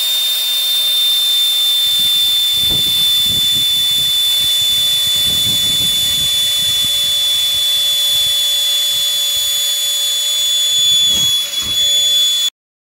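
Electric ducted fan in an RC rock crawler's chassis, spun up to about 15,000 rpm and running flat out: a loud, steady high-pitched whine with rushing air. It cuts off suddenly near the end.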